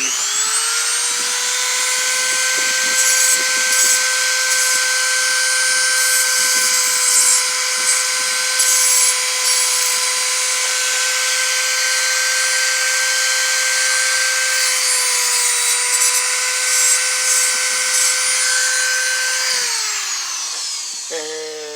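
Small high-speed rotary tool with a cutting wheel spinning up to a steady high whine, with several spells of harsher grinding as the wheel cuts into the lock-pick blank, then winding down near the end.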